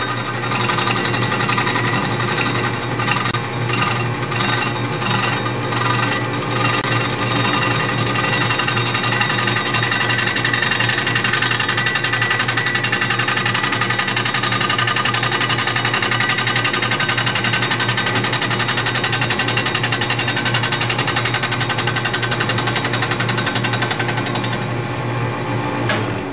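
A South Bend 10K lathe running with a milling attachment, its chuck-held cutter milling an aluminium bar in light cuts. It makes a steady machining sound with a fast rattle.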